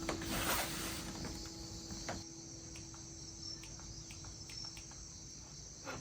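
Crickets chirping steadily in a rural night-time chorus, a high continuous trill, with the last held note of music fading out under it.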